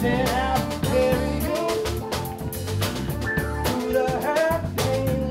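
Live band playing: drum kit keeping a steady beat under electric bass and electric guitar, with a wavering melody line on top.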